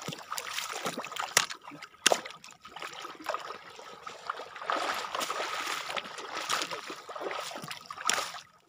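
Shallow seawater splashing and trickling as someone wades through it, with a couple of sharper splashes about one and two seconds in.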